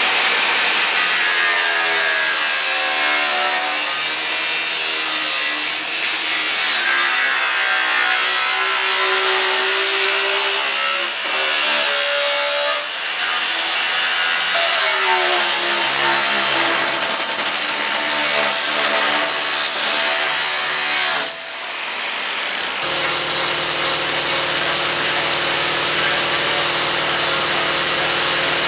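Large Makita angle grinder with a cut-off wheel cutting through rusty steel plate: a harsh grinding hiss over a motor whine that sags and recovers as the wheel is loaded. About 22 seconds in the sound changes to a smaller angle grinder running steadily with its disc on the plate's edge.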